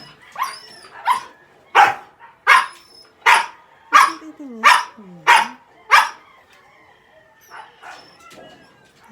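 A dog barking about nine times in a quick, even series, a little faster than one bark a second. The barking stops about six seconds in, leaving only faint scattered sounds.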